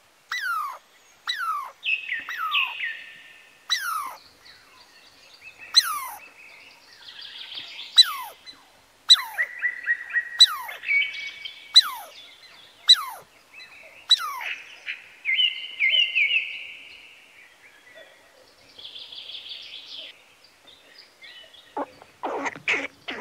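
Birds calling: whistled notes sliding steeply down in pitch, repeated about once a second, mixed with higher chattering and trilling calls. A louder, harsher, lower call comes near the end.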